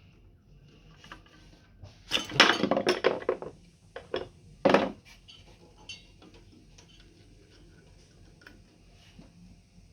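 Metal tools and parts clattering and clinking against each other for about a second and a half, then two sharper single clinks a moment later.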